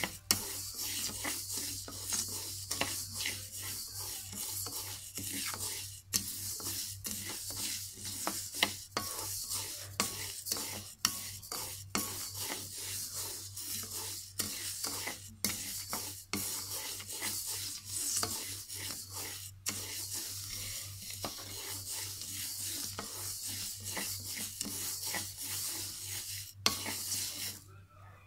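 A wooden paddle stirs and scrapes dry glutinous rice grains around a metal wok, making repeated rasping swishes. This is dry-roasting sticky rice for toasted rice powder. The strokes stop just before the end.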